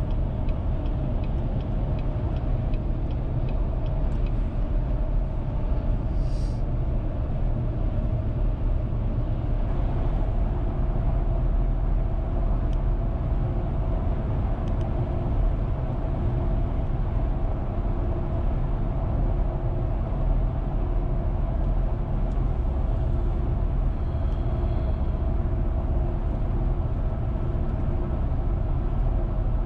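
Steady road and engine noise of a car driving along a paved two-lane road, heard from inside the cabin, mostly a low rumble.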